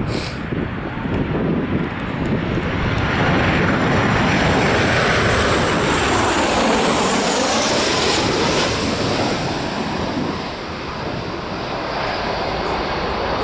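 Jet airliner passing close by. Its engine noise swells to a peak about four seconds in, with a sweeping shift in tone as it goes past, then eases off near the end.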